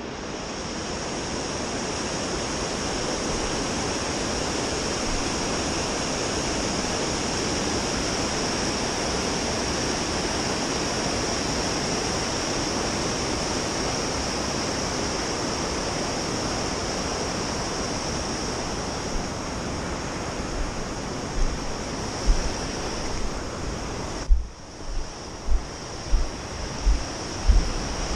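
Steady rushing noise with no engine tone in it, louder in a high hiss band. Irregular low thumps on the microphone come in over the last several seconds.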